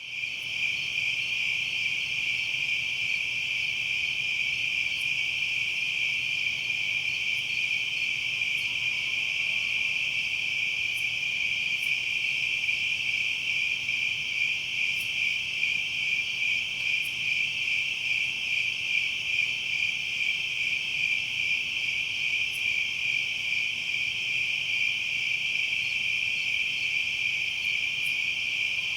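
Dense chorus of night insects trilling steadily, a high pulsing buzz with no let-up, with a few faint high ticks now and then.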